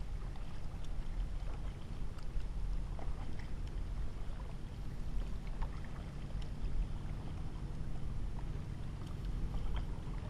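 Kayak paddling: the paddle blades dip in on alternate sides with light splashes and drips of water, over a steady low rumble.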